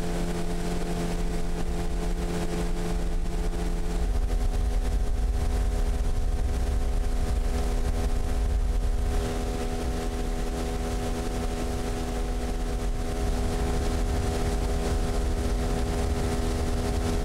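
Hidea 9.9 hp outboard motor running steadily under way, driving an inflatable boat. Its engine note shifts about four seconds in and again about nine seconds in.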